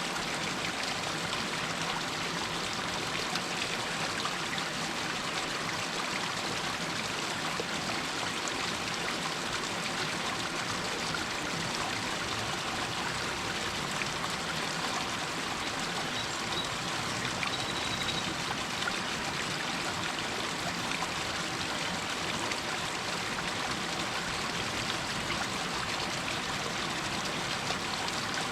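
Water running and trickling down over rocks, a steady splashing rush with no breaks. A brief faint high tone comes a little past halfway.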